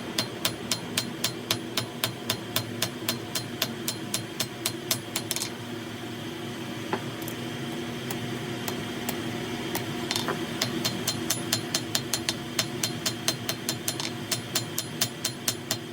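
Blacksmith's hammer striking metal on an anvil in quick, even blows, about four or five a second. The blows stop for a few seconds midway, apart from a couple of single strikes, then start again. A steady low hum runs underneath.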